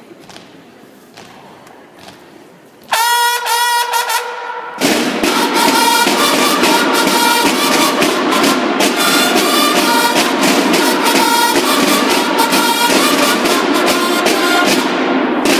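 Faint hall sound, then about three seconds in a bugle sounds a short call, and about two seconds later the full banda de guerra comes in loudly: several bugles playing together over rapid snare drumming.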